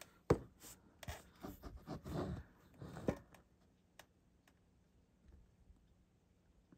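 Small clicks, taps and rustling of hands handling a small plastic model truck and tweezers, busiest over the first three seconds, then only a few faint ticks.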